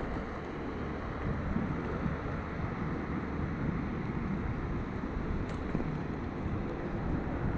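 Wind buffeting the microphone with road rumble from a fast-moving electric scooter; a steady, low, gusting rush.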